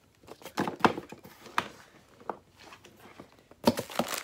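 Items being handled in an open cardboard box: about six light knocks and thunks at uneven intervals as small packaged products are moved and set down inside it.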